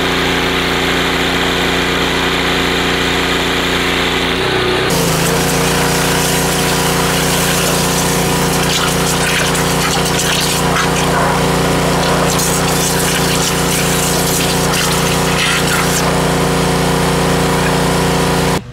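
Gas-engine pressure washer running with a steady hum, its high-pressure spray hissing as the wand blasts mud and water loose in a flooded hole. About five seconds in, the engine pitch dips briefly and the hiss grows louder and sharper, then holds. The sound cuts off suddenly near the end.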